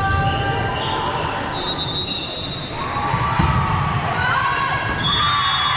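Athletic shoes squeaking on a gym floor during a volleyball rally, many short high squeaks, with the ball struck sharply about three and a half seconds in, over the low murmur of spectators in the hall.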